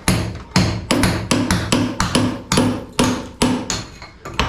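Hammer blows on a concrete kitchen slab, a rapid run of sharp knocks at about three a second, each with a short ring.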